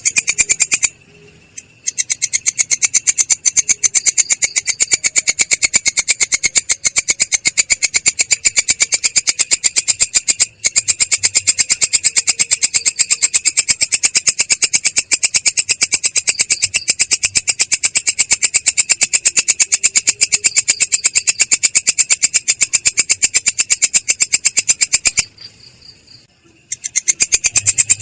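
A singing insect stridulating in a loud, fast, very regular pulsed trill, with two short pauses: about a second in and near the end.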